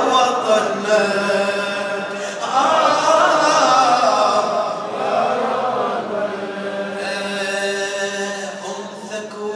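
A man chanting a mournful elegy poem in Arabic into a microphone, in long held, melodic lines carried over a mosque's loudspeakers.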